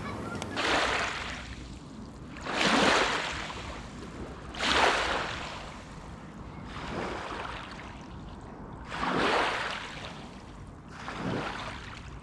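Small waves washing onto the river beach, six swells of rushing wash about every two seconds over a low steady rumble.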